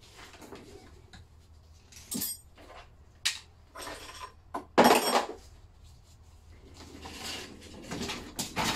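Metal clanks and clinks as the Lister D's cast-iron crankcase and loose tools are handled and the engine is turned around on its wheeled wooden board. Several separate knocks, the loudest about five seconds in, with some scraping between them.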